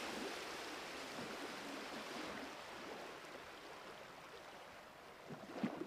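A steady rushing hiss that slowly fades, with a few brief low knocks about five seconds in.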